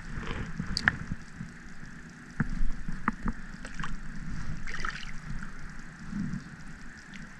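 Water sloshing around a kayak hull with a steady low rush, broken by scattered short clicks and knocks.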